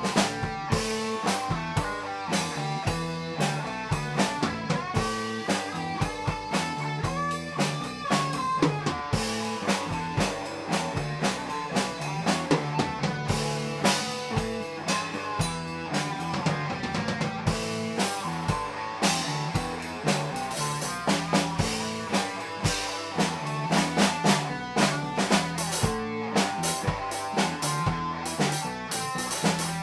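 Instrumental music: guitar over a drum kit playing a steady beat.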